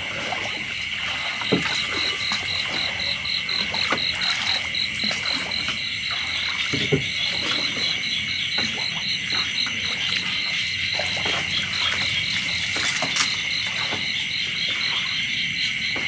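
Night-time chorus of insects and frogs: a steady high buzz with a rapid pulsed chirping on top, about five pulses a second, which pauses briefly around six seconds in. A few faint knocks sound over it.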